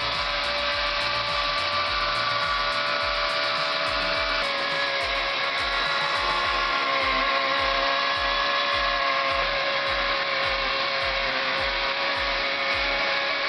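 A power tool's motor whining steadily, its pitch shifting slightly about four and a half seconds in, over background music with a steady beat.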